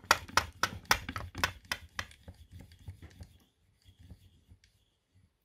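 A benchtop mini milling machine clicking evenly, about three to four times a second, as its countersink bit is lowered toward the part; the clicks fade out about three and a half seconds in, followed by a few faint ticks.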